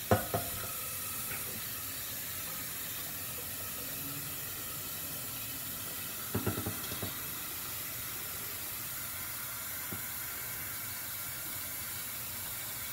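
Gas stove burner burning with a steady hiss, with a short run of faint knocks and clatter about six seconds in.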